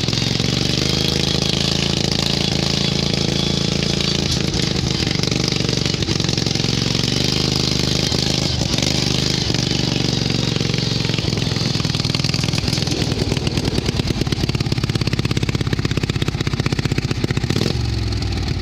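Riding lawn tractor engine running steadily under way on gravel. Near the end its pitch drops as the tractor rolls to a stop and the engine falls back toward idle. The owner says the engine needs a new carburettor.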